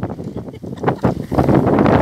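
Strong sandstorm wind gusting and buffeting the phone's microphone, easing briefly about half a second in and rising to its strongest in the second half.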